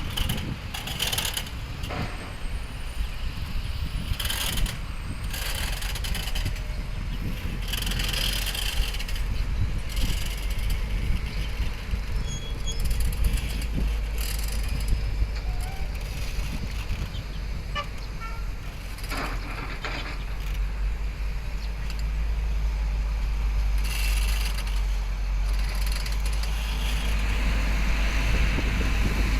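Excavator's diesel engine running with a steady low rumble, broken by short bursts of hiss every few seconds.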